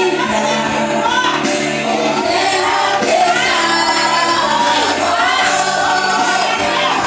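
Christian worship music with voices singing over sustained instrumental chords.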